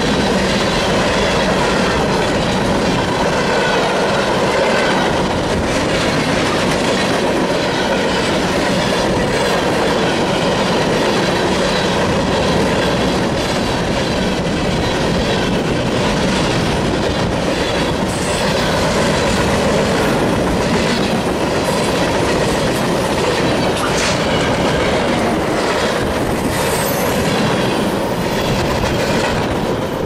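Freight train cars, mostly covered hoppers, rolling past at close range. Steel wheels run on the rail with a steady, loud rumble and an occasional click-clack over rail joints.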